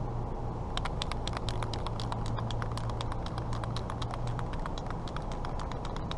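Rapid, irregular clicking of the mixing ball rattling inside an aerosol can of Rubber Flexx spray sealant as the can is shaken, starting about a second in, over a steady low hum.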